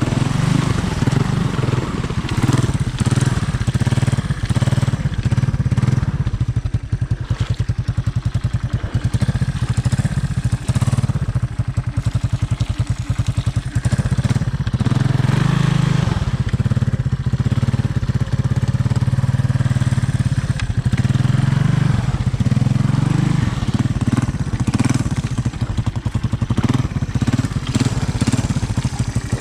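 Honda ATC 200M three-wheeler's air-cooled single-cylinder four-stroke engine running, its exhaust putting out a fast, even firing pulse.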